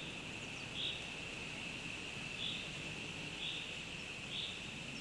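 Steady high-pitched insect buzz, swelling brighter every second or so, over an even outdoor background hiss.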